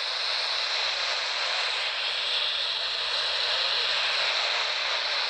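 Steady static hiss from a CB radio receiver's speaker, with the squelch open on an empty channel between skip transmissions.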